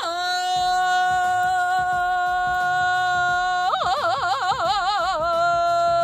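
A woman singing one long, high, sustained note, breaking into a wide, wavering vibrato for a second or two about four seconds in, then holding the note steady again.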